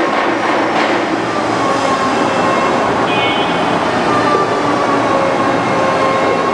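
Steady, loud background noise, with a few faint thin tones running through it.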